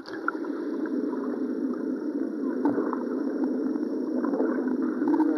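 Bubbling spa-pool jets heard underwater: a steady, dull churning of water and air bubbles.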